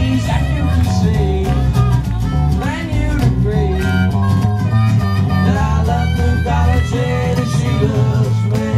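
Live band playing a blues-rock song: acoustic and hollow-body electric guitars with a wavering lead melody line over them.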